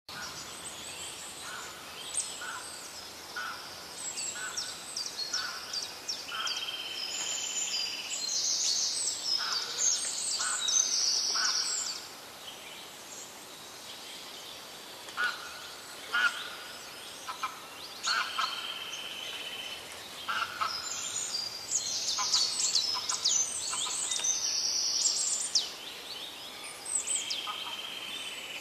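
Several wild birds calling together, with many quick, high, falling chirps. Runs of short, evenly spaced notes come at about one or two a second, and a steady high whistle is held for about a second three times.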